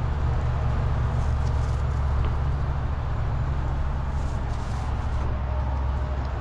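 Electric power awning motor running steadily as the awning rolls out, a continuous low hum.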